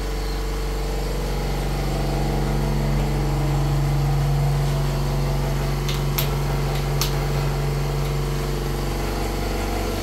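Pulse-compressor radiator flushing machine running steadily, its air compressor driving pulses through the central-heating pipework to flush out sludge. A few short sharp clicks come around the middle.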